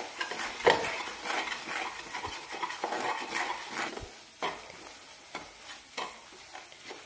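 Wooden spatula scraping and stirring crumbly roasted besan (gram flour) around a stainless steel pan, with a light sizzle of ghee, as the milk-moistened flour is roasted to a grainy texture. Uneven scraping strokes that grow quieter in the second half.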